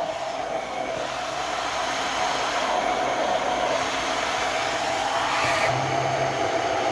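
Braun immersion (stick) blender motor running steadily, its blade puréeing raspberries in syrup in a tall plastic beaker. It cuts off near the end.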